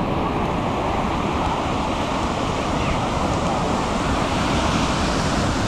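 Ocean surf breaking and washing up the sand, a steady rush of waves.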